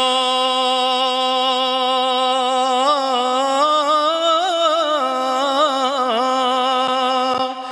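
A man's voice sustains one long sung note in a naat recitation. About halfway through, the pitch wavers in an ornament, then settles back on the same note.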